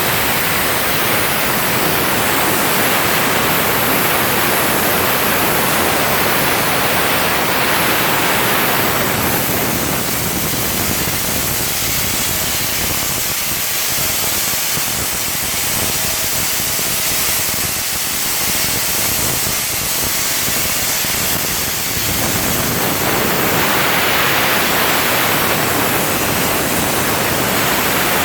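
CNC plasma torch cutting 12 mm Hardox steel plate: a loud, steady hiss, duller from about ten seconds in until about twenty-two seconds, then brighter again.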